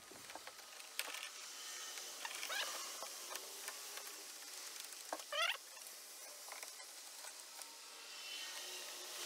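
Ratchet wrench clicking in short runs as the screws holding a hydraulic steering helm's mount are driven in, with small metal clicks and two short rising squeaks, the second, about five seconds in, the loudest.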